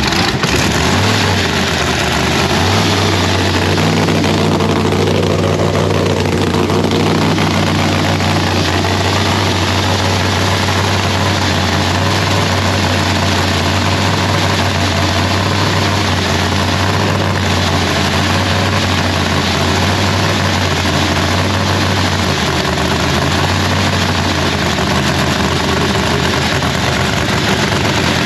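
Turbocharged drag-race car engine idling steadily after a fresh start, being warmed up on stands.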